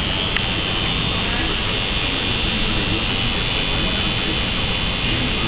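Electric tattoo machine buzzing steadily while the needle runs the outline into the skin, with a continuous high-pitched whine.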